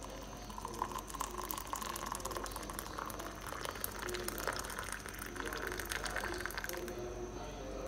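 Water poured in a steady stream from a kettle onto a tea bag in a mug, splashing, with the pitch of the fill rising as the mug fills; the pour stops near the end.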